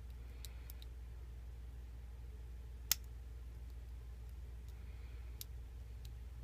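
Faint, scattered metallic clicks of a thin lock pick working the pins inside a Mako 427 six-pin padlock held in the hand, with one sharper click about three seconds in.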